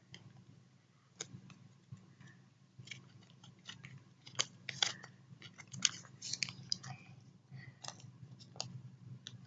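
A small folded paper note being unfolded and handled, with irregular soft crinkles and crackles that get busier about halfway through.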